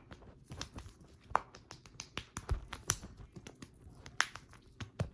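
Silicone pop-it fidget toy being pressed, giving a string of irregular soft pops and clicks.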